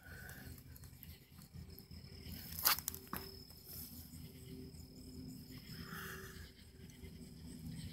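Crickets chirping steadily in the night background, with one sharp knock about two and a half seconds in.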